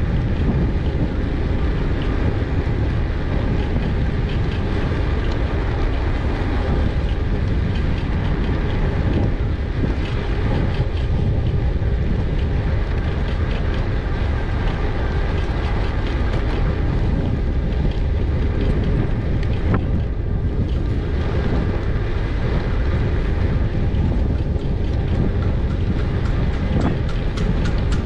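Wind rumbling steadily on a GoPro Hero 8's microphone during an e-bike ride, with scattered light clicks and rattles from the moving bike, more frequent near the end.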